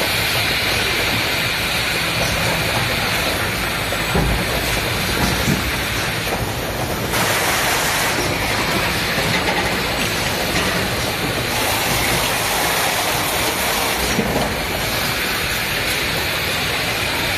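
Production and packaging line machinery running: a loud, steady mechanical noise that shifts in character every few seconds.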